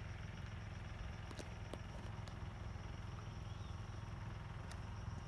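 Outdoor harbour ambience: a steady low rumble with a faint high whine, and a few faint clicks.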